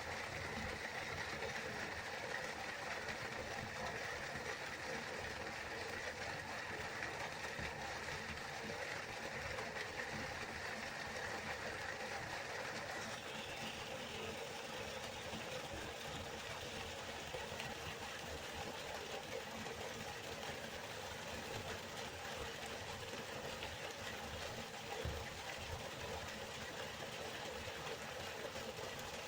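Waterfall: a steady rush of falling water, its tone shifting slightly about thirteen seconds in.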